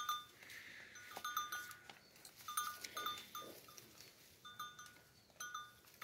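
Small bell worn by a sheep clinking faintly in short, irregular clusters as the flock browses on leafy branches.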